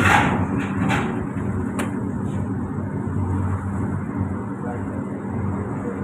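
Steady low hum of a commercial kitchen's extractor hood and gas burners, with a few short clanks of pots or utensils in the first two seconds.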